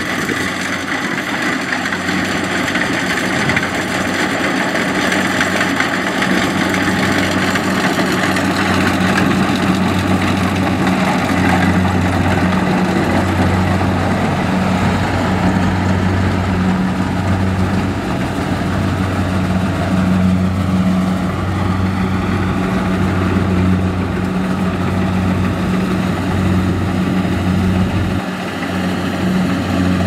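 Rice combine harvester at work: its diesel engine runs steadily with a low, even hum under the broad noise of the cutter and threshing drum.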